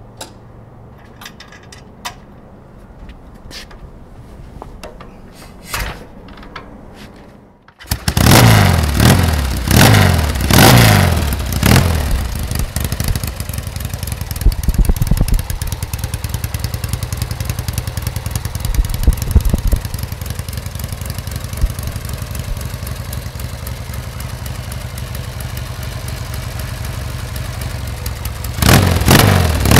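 1973 Norton Commando 850's 828cc parallel twin, warm from a ride, kick-started hot: a few light clicks, then it fires about eight seconds in, is blipped several times, and settles to a steady idle through its Dunstall-style exhausts before being revved again near the end.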